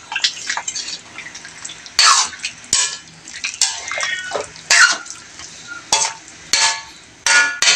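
A spatula stirring a chunky tomato-based stew in a wok: irregular scraping strokes against the pan, about one a second, with the thick sauce sloshing between them.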